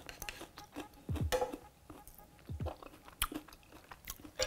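A person chewing a bite of battered, deep-fried artichoke, with irregular soft clicks and small mouth noises.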